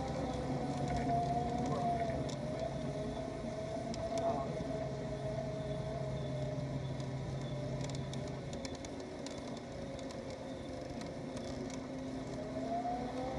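Garden-scale model streetcar running, heard from on board: a steady whine from its drive motor and gears that wavers a little in pitch as the speed changes, over a low hum that drops out about two-thirds of the way through.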